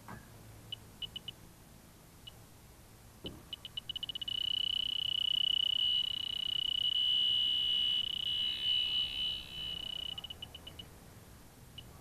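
Electronic refrigerant leak detector ticking with sparse high beeps. About four seconds in they speed up and merge into a steady high alarm tone. The tone holds for about six seconds, then breaks back into slowing beeps. It is picking up refrigerant leaking from the heat pump's indoor coil.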